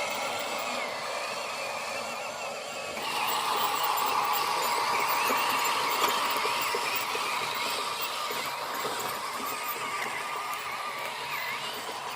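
Small electric motors of a radio-controlled model excavator or dump truck whining. A steady higher whine cuts in about three seconds in and slowly eases off, with one sharp click near the middle.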